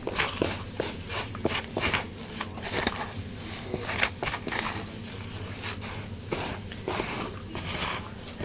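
A hand stirring and scooping a dry, flaky feed mix in a plastic tub: irregular rustling with crunchy crackles and small clicks.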